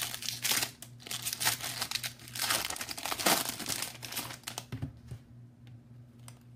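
Foil wrapper of a baseball card pack crinkling and tearing as it is opened, in irregular bursts that die down after about four and a half seconds.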